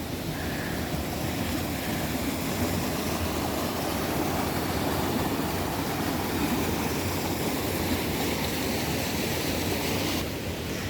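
Waterfall on a mountain creek, the water rushing steadily, with its hiss dulling a little near the end.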